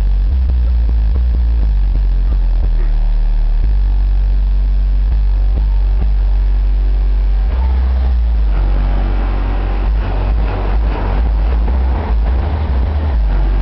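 Two 8-inch subwoofers playing bass-heavy music at high volume. Very deep sustained bass notes change pitch every second or so, and more of the higher parts of the track come in about eight seconds in.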